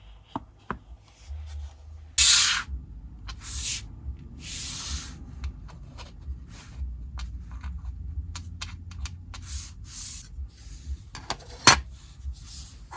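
Irregular short bursts of hiss, separated by quieter rubbing and scraping, with one sharp click near the end.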